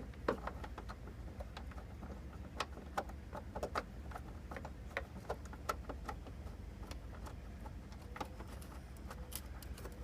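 Light metallic clicks and taps at irregular intervals as a car door hinge is twisted and worked loose with hand tools.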